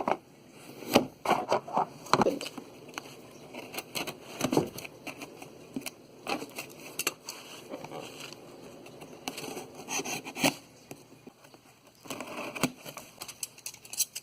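A parcel being opened by hand: irregular scraping, clicking and crackling of the packaging.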